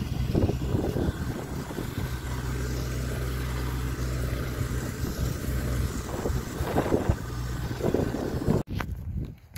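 Farm tractor engine running steadily while it pulls a slurry tanker that is spreading liquid onto a field, with wind and handling noise on the microphone. The sound cuts off abruptly near the end.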